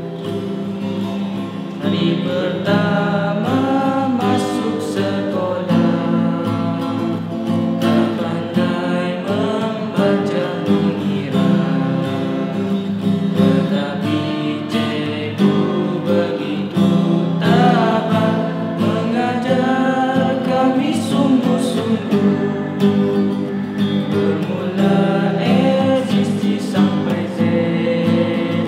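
Classical guitar strummed and picked in steady chords, with a young male voice singing a melody over it.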